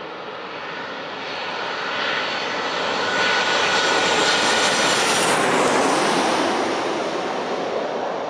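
Airliner on landing approach passing low overhead: its engine noise swells, is loudest about four to six seconds in with a steady high whine, then fades as it goes past.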